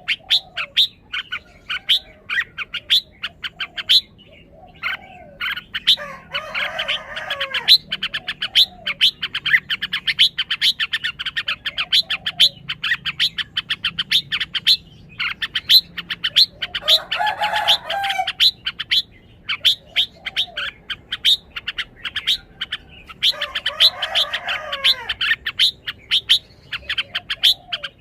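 Red-whiskered bulbul giving a rapid run of sharp, high chips, several a second, broken three times by short warbled song phrases. The owner wonders whether this shows the bird is highly excited.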